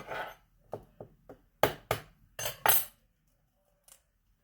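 A run of sharp knocks and clicks, the loudest four coming close together about two seconds in: eggs being tapped on the rim of a microwave egg poacher and cracked open.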